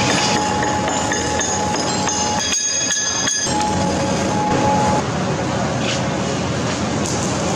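Stick (shielded metal arc) welding arcs crackling and hissing, over the steady hum of workshop machinery. The level drops slightly about five seconds in.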